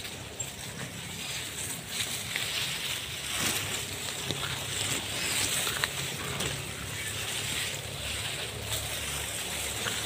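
Fern fronds and leafy undergrowth rustling and brushing as someone pushes through them on foot, with a few small snaps and crackles.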